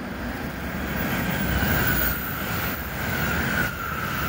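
Shinkansen high-speed train running past the platform: a rushing noise that grows louder after the first second, with a steady high whine over it.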